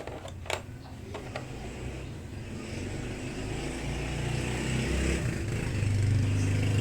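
A few sharp clicks, then a motor vehicle engine running with a low, steady hum that grows gradually louder.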